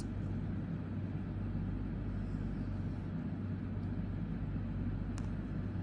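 Steady low hum with a faint hiss of background noise, and a single small click about five seconds in.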